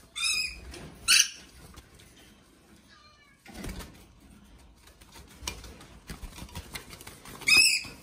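Young yellow-streaked lories giving short, high-pitched calls: two close together in the first second and a louder one near the end, with a soft rustle of feathers about halfway through.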